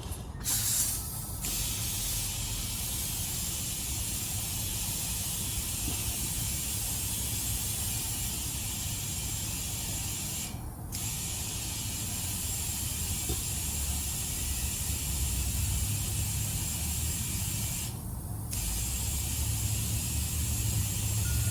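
Compressed air from an air compressor hose hissing steadily into a car tire as it is inflated, over a low steady hum, the hiss stopping briefly three times.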